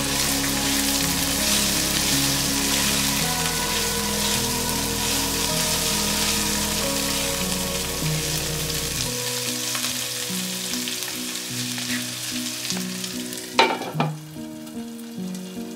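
Chopped vegetables and spring onions sizzling in oil in a pan, stirred and scraped with a silicone spatula. About 13 seconds in, a glass lid is set on the pan with two sharp clinks, and the sizzle becomes muffled. Soft background music with held notes plays throughout.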